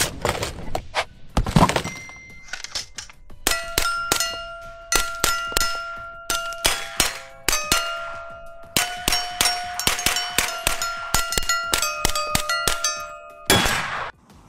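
Rifle shots hitting a row of steel targets in quick succession. Each hit rings out a clear, bell-like tone, and the changing pitches pick out a tune. Near the end comes one louder shot.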